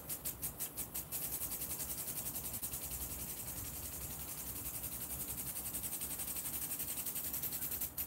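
Impact lawn sprinkler on a garden hose ticking steadily over the hiss of its water jet, about five ticks a second; about a second in the ticking turns faster and denser, and just before the end it drops back to the slower pace.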